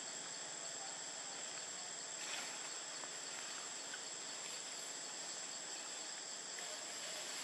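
Insects droning steadily in the forest: one unbroken high-pitched tone over a soft background hiss.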